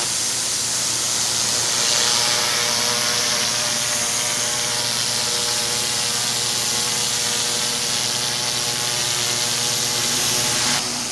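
Pressure washer running steadily, its high-pressure water spray hissing against concrete over a steady engine note. The hiss drops off sharply near the end.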